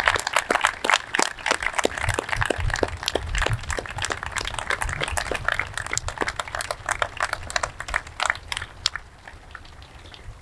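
Crowd applauding, the clapping thinning out and dying away near the end.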